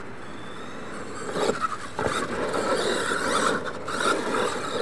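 Radio-controlled monster truck driving across loose dirt: its motor and drivetrain whine, with the tyres scrabbling and scraping in the dirt. It gets louder and rougher about a second in as the truck accelerates.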